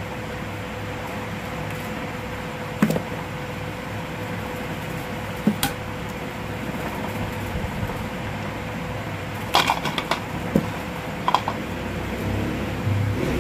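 Hand tools and wire being worked: sharp metallic clicks and clinks from combination pliers as a wire is stripped and joined. The clicks come singly about three and five and a half seconds in, then in a quick cluster around ten seconds and once more shortly after, over a steady background hum.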